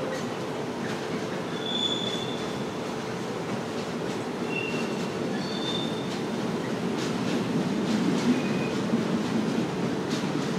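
Freight train of container and tank-container wagons rolling past: a steady rumble of wheels on rail, with a few short, high wheel squeals and a run of clicks over the rail joints about seven seconds in.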